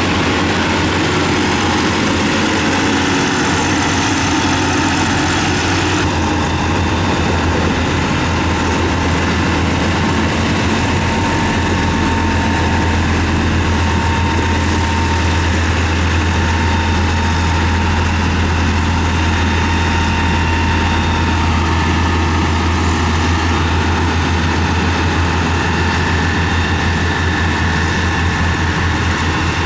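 Heavy diesel engine of a road-construction machine, such as a motor grader or road roller, running steadily with a deep, continuous low hum.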